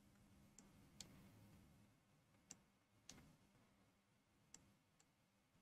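Near silence broken by about five faint, sharp computer mouse clicks, spaced irregularly.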